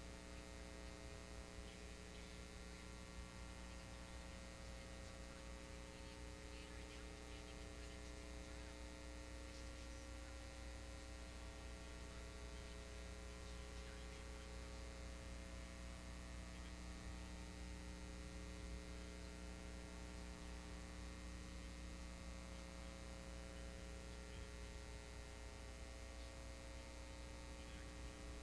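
Faint, steady electrical mains hum with a light hiss and no programme sound: the blank gap left in a taped TV broadcast where the local station's ads were left out.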